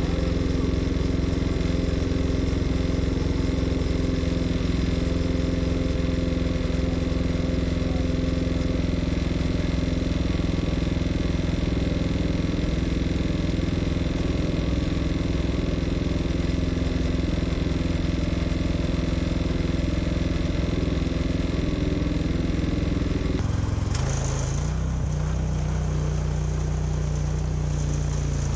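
Portable band sawmill's engine running steadily under load as the blade saws through a black walnut log. About 24 seconds in, the cutting noise drops away and the engine note shifts, as the blade comes out of the cut.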